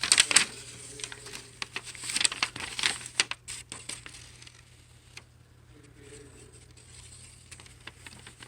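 Rustling and crinkling of packaging being handled, with a few sharp clicks, busiest in the first few seconds and then dying down to faint handling noises.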